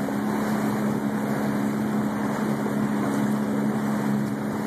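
A boat's motor running steadily: an even low hum under a constant hiss of wind and water.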